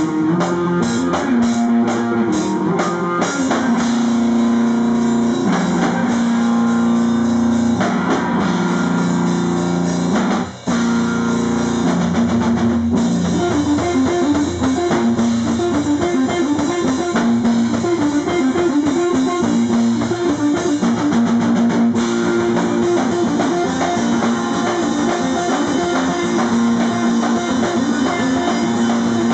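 Live rock band playing loudly, with guitar and a drum kit; the music breaks off for an instant about ten seconds in, then carries on.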